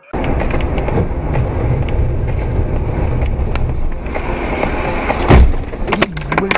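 Loud, steady road and engine noise of a moving car, heard from the dashcam behind the windscreen. A single heavy thud comes about five seconds in, followed by a few sharper knocks.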